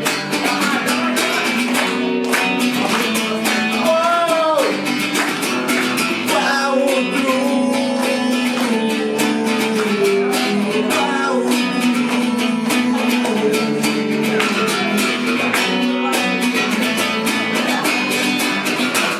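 Live rock band playing an instrumental passage of a song, led by strummed guitar with a steady beat.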